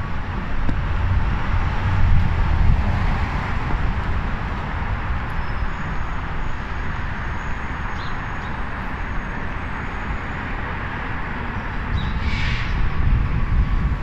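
City street traffic: cars driving past on the road, a steady rumble that swells about two seconds in and again near the end. A brief high-pitched sound cuts through about twelve seconds in.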